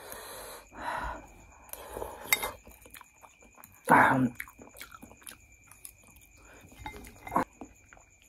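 Close-up mukbang eating sounds: chewing a mouthful of noodles, with scattered sharp clicks and one louder mouth sound about four seconds in.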